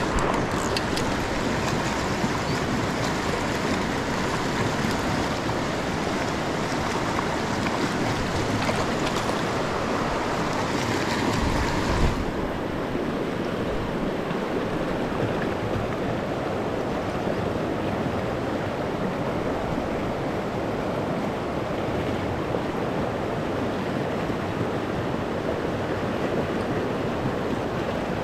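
Shallow rocky river rushing through a riffle: a steady, even wash of water. About twelve seconds in it abruptly turns duller, losing its hiss, just after a brief knock.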